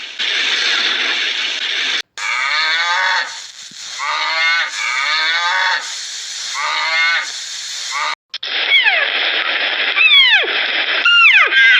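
Farm animal calls in short edited clips. After a stretch of hiss-like noise, a run of falling calls repeats about once a second, then a series of sharp, high, steeply falling calls follows.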